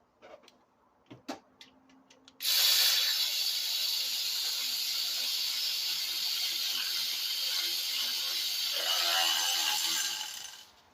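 Power ratchet driving an engine bracket bolt in through an extension: a few light clicks, then about eight seconds of steady, high whirring hiss that starts suddenly and tails off near the end.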